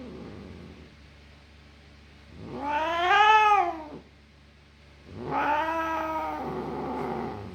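Elderly cat yowling in protest at being groomed: two long, drawn-out yowls, the first louder and rising then falling in pitch, the second longer and flatter.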